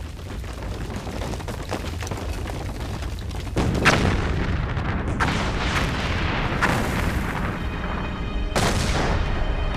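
Explosive volcanic eruption: a low rumble, then a sudden heavy blast about three and a half seconds in, followed by several more blasts.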